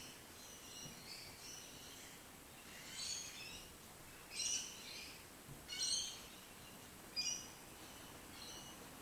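Birds chirping: a series of short, high calls, softer at first, with louder chirps about three, four and a half, six and seven seconds in, over faint outdoor background noise.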